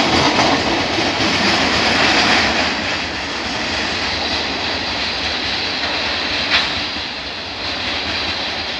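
Oil tank wagons of a freight train rolling past on the rails, growing steadily quieter as the brake van at the tail goes by and the train moves away. A single sharp click about six and a half seconds in.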